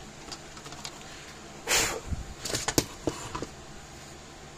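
Handling noise from a plastic fence-charger housing and circuit board being moved and set down on a wooden workbench: a brief scraping swish about two seconds in, then a handful of light clicks and knocks.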